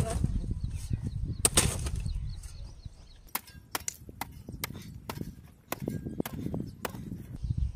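A digging tool striking into hard soil while a foundation trench is dug by hand: a series of sharp chopping strikes, quickening after about three seconds.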